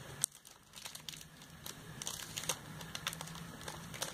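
Plastic packaging crinkling as it is handled and opened, in scattered irregular crackles and clicks.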